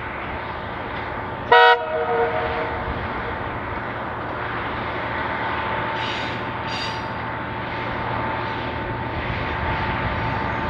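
Tulloch-built DRC-class diesel railcar sounding one short horn blast about one and a half seconds in, then its engine running steadily and slowly growing louder as it approaches.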